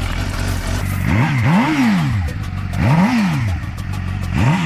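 Motorcycle engine running and revved up and back down several times, its pitch climbing and falling with each throttle blip over a steady idle.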